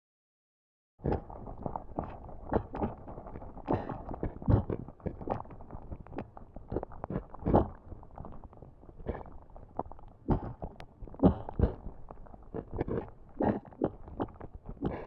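Lava bubbling and popping: irregular pops of varying strength, several a second, over a low rumble, starting about a second in after a brief silence.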